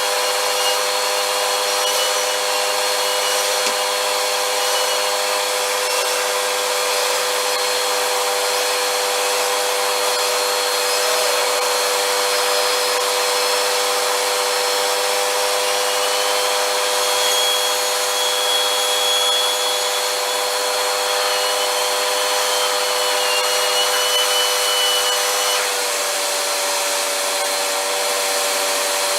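Vacuum cleaner running steadily: a constant motor whine over the hiss of suction, its tone shifting slightly about 26 seconds in.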